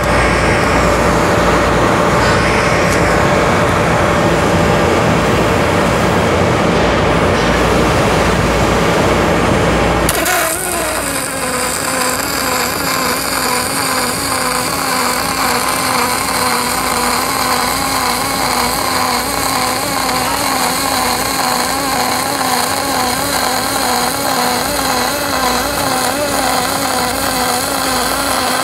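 A loud, steady rushing noise with a low rumble, then about ten seconds in an aluminum MIG welding arc strikes. The arc burns on as a long continuous bead: a steady hiss with a wavering tone under it.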